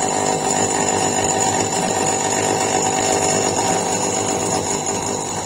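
CNC lathe cutting: the tool, fed by hand with the handwheel, working into the spinning workpiece, a steady buzzing with a thin high whine that falls away at the end as the feed stops.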